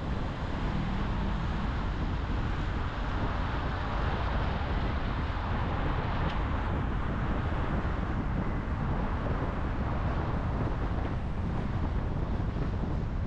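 A car driving at a steady pace: continuous road rumble with wind noise on the microphone.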